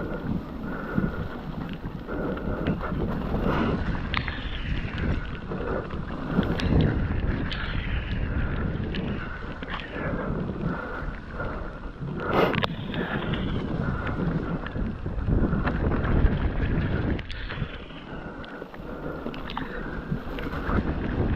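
Mountain bike riding a wet, rocky trail: tyres rumbling over the ground and the bike knocking and rattling over bumps, with wind buffeting the camera microphone.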